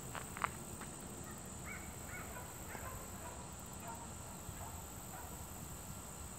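Faint outdoor ambience: a scatter of short, distant animal calls over a steady high drone, with two sharp clicks in the first half second.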